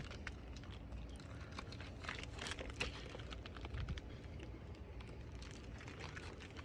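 Plastic garbage bag crinkling and rustling in small irregular crackles.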